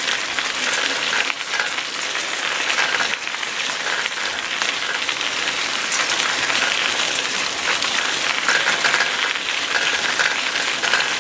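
Bicycle tyres rolling over a gravel trail covered in dry leaves: a steady crunching crackle of grit and leaves under the wheels.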